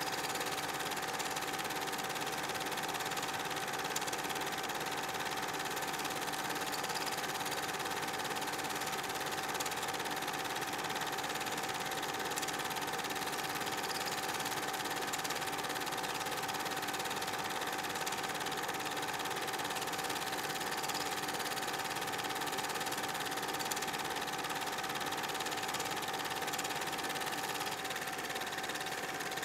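8 mm film projector running: a steady mechanical whirr with a constant tone through it.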